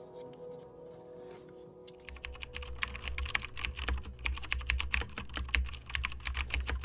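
Last notes of a guitar song fading out, then from about two seconds in, fast typing on a laptop keyboard: a dense, irregular run of key clicks.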